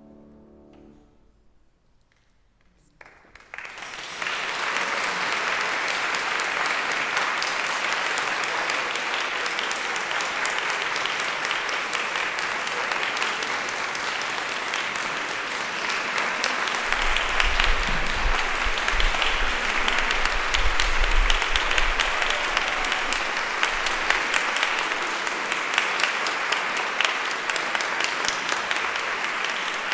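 The last notes of piano accompaniment die away, a short hush follows, and then an audience breaks into applause about three seconds in, clapping steadily to the end. A low rumble sits under the clapping partway through.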